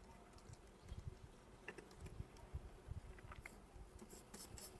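Near silence, with faint, irregular clicks and taps of a computer mouse and keyboard.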